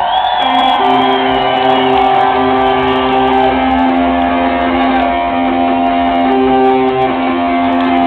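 Live rock band playing, electric guitars ringing out long held notes. A high wavering tone sits over them for the first two seconds or so.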